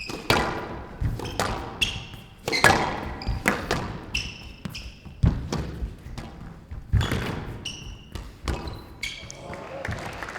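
Squash rally: a string of sharp hits about a second apart as the ball is struck by racquets and smacks off the court walls, each echoing briefly, with short high squeaks from shoes on the court floor between them.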